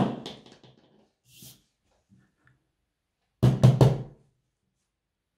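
A sudden loud drum-like knock that rings and fades over about a second, then after a silent gap a quick run of four or five knocks in under a second, like a percussion sound effect.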